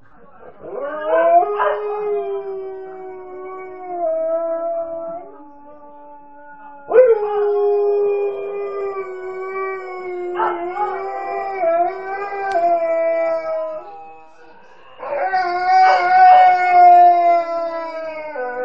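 Alaskan Malamute howling: three long, wavering howls that begin about half a second, seven seconds and fifteen seconds in.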